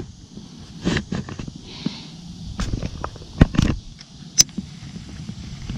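Handling noise from a baitcasting rod and reel during a cast and retrieve: scattered clicks, light knocks and scrapes, with a sharp click about four and a half seconds in, over a low rumble of wind on the microphone.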